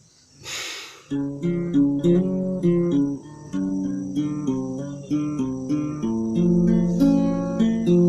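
Acoustic guitar picking an arpeggiated intro, the notes starting about a second in, just after a short burst of noise.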